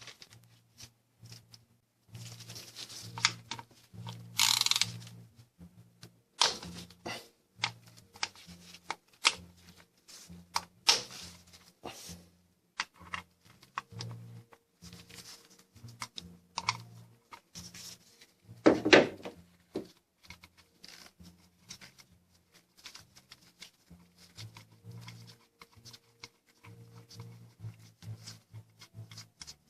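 Hand tools and metal engine parts clicking, clinking and knocking at irregular intervals while a timing chain guide is unbolted, with a few louder knocks, the loudest a little past the middle.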